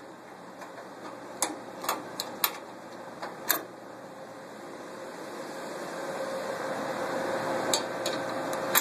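Wrench working a bolt on a Simplex 35mm cinema projector's metal pedestal: a few sharp metallic clicks and knocks. In the second half a steady hiss slowly grows louder under a faint hum, with two more clicks near the end.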